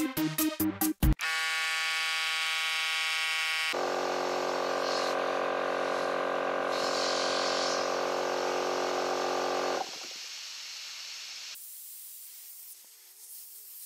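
Electric air compressor motor running with a steady hum, cutting off abruptly about ten seconds in, followed by a hiss of air bleeding off as the automatic pressure switch shuts the motor down.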